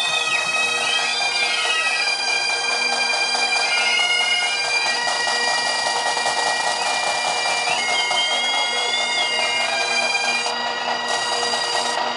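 Pipe band of Great Highland bagpipes playing a melody in long held notes over the steady drones.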